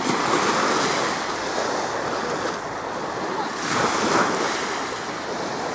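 Small waves breaking and washing up a sandy shore, swelling about a second in and again near four seconds, with wind rumbling on the microphone.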